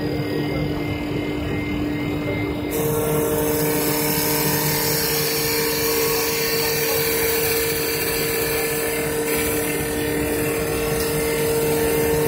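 A CNC wood lathe running, spinning a wooden workpiece against its bristle sanding brush: a steady machine hum with a held whine. About three seconds in, a louder hiss and a second, higher whine join in and keep going.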